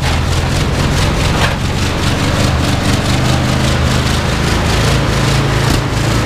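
Chevrolet step van's 350 V8 running steadily and loudly, with no change in engine speed.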